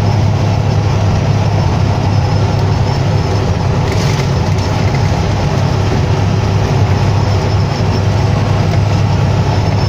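Semi truck's engine drone and road noise heard inside the cab while cruising at highway speed: a steady low hum under an even rush of tyre and wind noise.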